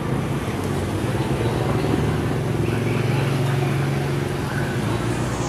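Busy outdoor street ambience: a steady low motor drone that swells in the middle, with faint voices behind it.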